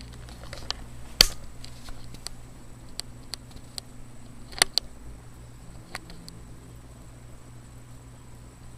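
Steady low hum of a running desktop computer's cooling fans, with a few sharp clicks scattered through it, the strongest about a second in and again about four and a half seconds in.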